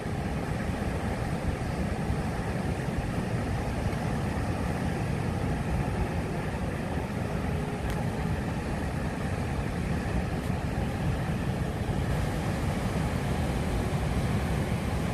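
Steady low rush of ocean surf and wind on the microphone, even throughout with no separate wave crashes.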